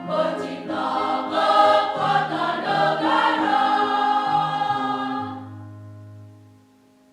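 A choir singing in several parts, closing a phrase on a held chord over a low bass note. The chord fades out about six to seven seconds in.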